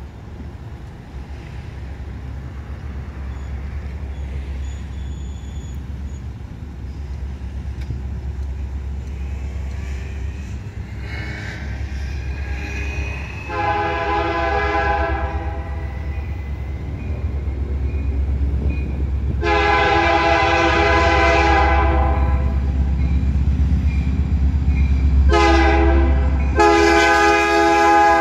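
Canadian Pacific freight locomotive's air horn sounding the grade-crossing signal as the train approaches: two long blasts, a short one, and a final long one that is still going at the end. The first blast comes about halfway in, and beneath the horn a low rumble grows steadily louder as the train nears.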